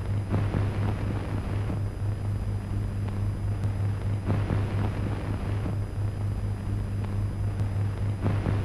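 Steady low hum and hiss of a worn 1930s optical film soundtrack. Faint, indistinct sounds rise out of it about a second in, around four to five seconds in, and again near the end.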